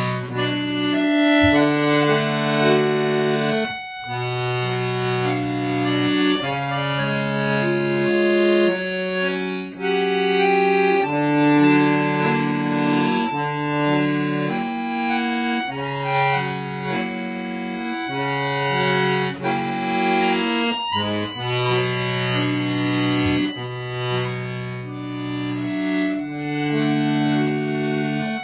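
Solo accordion music: sustained chords and a melody over held bass notes, each note holding steady rather than fading. There are brief breaks in the sound about four seconds in and again near twenty-one seconds.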